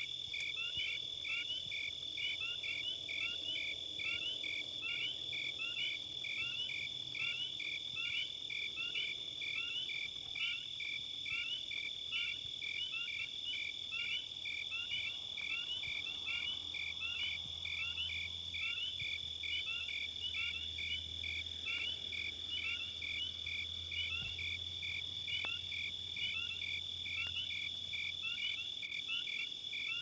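Crickets chirping in an even rhythm, about two chirps a second, over a continuous high insect trill. A faint low hum comes in about halfway through and fades near the end.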